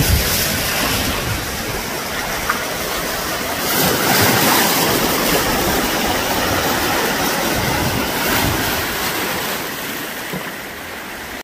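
Lake surf breaking and washing against a rocky shore: a continuous rush of water that swells loudest about four seconds in and eases off near the end.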